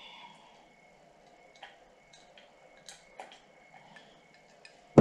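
A person drinking from a ceramic mug: a soft sip at the start, then faint scattered clicks of swallowing and the mouth.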